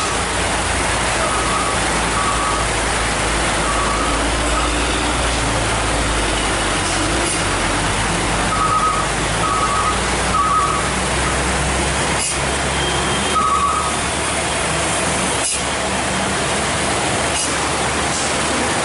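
Heavy trucks running slowly on a wet road in the rain, a low engine rumble under a steady hiss of rain and running water. Short runs of high electronic beeping come and go several times.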